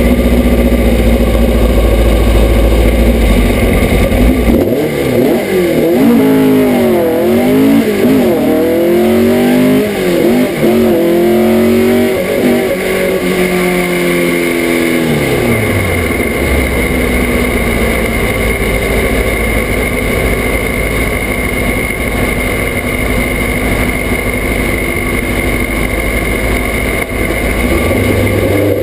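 Air-cooled VW flat-four drag-racing engine heard from inside the cockpit. It runs steadily at first, then from about four seconds in the revs climb and drop over and over through the gear changes of a hard run. About fourteen seconds in the pitch falls away, and it settles to steady, lower running.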